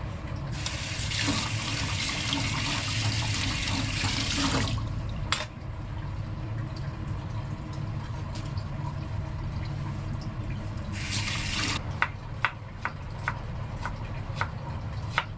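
Kitchen tap running into a sink for about four seconds, then again briefly near the end, with scattered sharp clicks in between.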